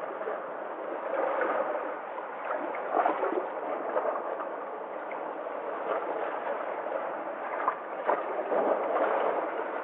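Sea water washing and sloshing, with small splashes, swelling louder a few times as waves come in.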